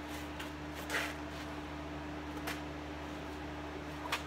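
Vinyl roof covering being pressed and tucked by hand into the roof's drip-rail gutter, giving a few short rustles and scrapes about one, two and a half and four seconds in, over a steady low hum.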